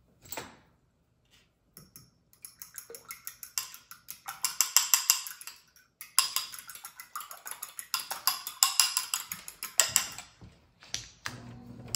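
A fork beating eggs in a small bowl: fast runs of clicking strokes against the bowl, with a short break about six seconds in. Near the end a steady hum starts as the cooktop's pop-up downdraft vent rises.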